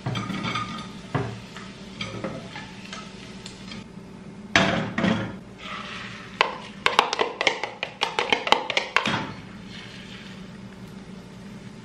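Cooking utensils working a non-stick frying pan: a spatula scraping and knocking in the pan as fried sausage slices are lifted out, then a run of quick clinks and taps while crepioca batter is poured in from a bowl. A faint steady hiss for the last couple of seconds.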